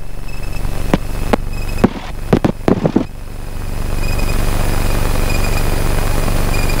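Single-engine light aircraft's piston engine and propeller running at taxi, heard inside the cockpit, with a few short clicks in the first three seconds. It swells louder about three seconds in and then holds steady.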